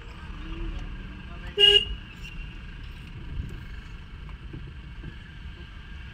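A car horn gives one short toot about a second and a half in, over the steady low rumble of a car's engine and road noise heard from inside the cabin.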